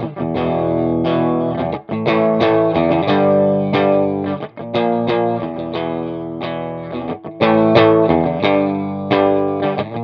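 Fender Jaguar electric guitar on its bridge pickup, played through a Tech 21 Double Drive overdrive pedal into an Orange Rockerverb 100 amp, playing a riff of overdriven chords. The pedal's Class A drive gives the crunch of a cranked Vox AC30-style amp.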